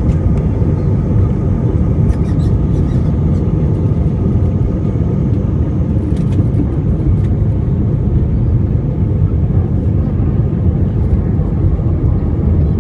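Airbus A319 jet engines at high power heard from inside the passenger cabin during the departure: a loud, steady rumble with a faint high steady tone above it.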